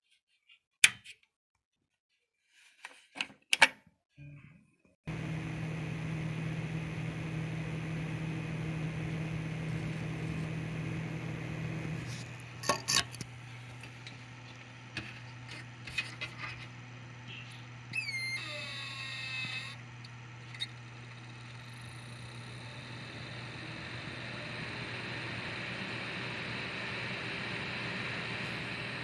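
A few clicks, then computer cooling fans start up and run with a steady whirring hum. Around twelve seconds in the hum drops to a lower pitch, and near the end it swells again as the fan speed changes.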